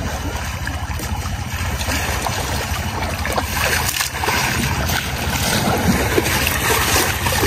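Water splashing and sloshing in a concrete pool as an Asian elephant rolls over in it and a person wades through the water beside it. The splashing gets livelier about halfway through, over a steady low rumble.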